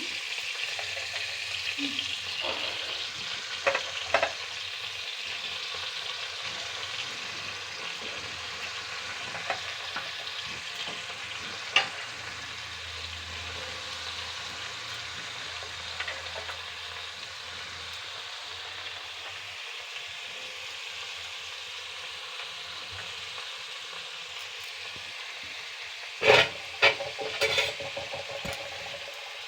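Cauliflower pieces frying in hot oil in a pan, a steady sizzle, with occasional sharp knocks of a spatula stirring against the pan and a burst of louder clatter near the end.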